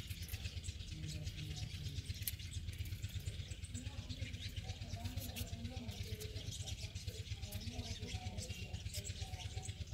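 Small kitchen knife peeling and cutting a white radish by hand: faint crisp cuts over a steady low hum.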